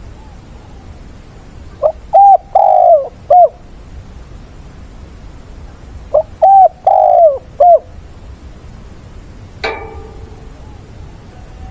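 Caged decoy spotted dove cooing twice, about four seconds apart. Each phrase is four notes, with the third note the longest and falling in pitch. A single sharp click comes near the end.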